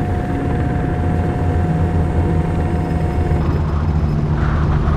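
Helicopter in flight: a steady low drone from the rotor and engines, with a thin, steady whine above it. The whine stops and the sound shifts slightly about three and a half seconds in.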